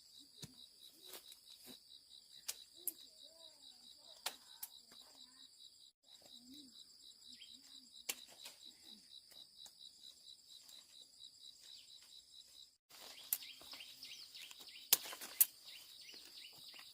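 Faint outdoor ambience: a steady, rapidly pulsing high insect trill, with scattered light clicks and faint distant calls or voices. The sound drops out briefly twice.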